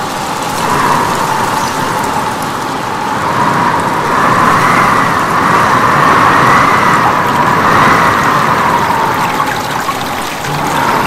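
Steady rushing water with no pitch, swelling and easing every second or two.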